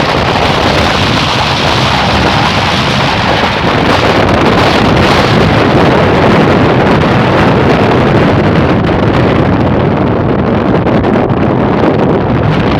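Wind and rain of an advancing storm: a loud, steady rushing noise, with wind buffeting the microphone.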